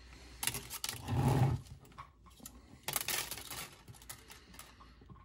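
Handling noise from 3D-printer filament and a digital caliper: rustling scrapes as the stiff plastic filament is pulled and slid through the caliper jaws, with small plastic clicks. There are two louder scraping stretches, about half a second in and about three seconds in.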